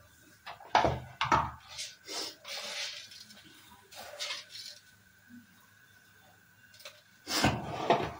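Kitchen pots and utensils clinking and knocking on a counter: a series of short knocks and clatters, with a louder clatter near the end.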